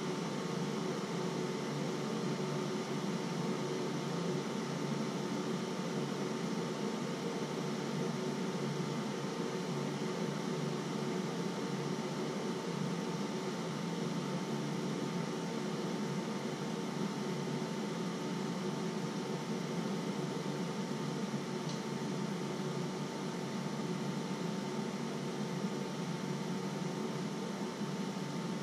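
Steady mechanical hum and hiss with a faint constant tone, unchanging throughout.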